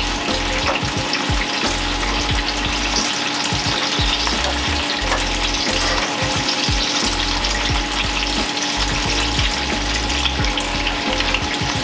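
Battered apple fritters (cornstarch and soda-water batter) deep-frying in hot oil at about 180 °C: a steady sizzle with dense, continuous crackle.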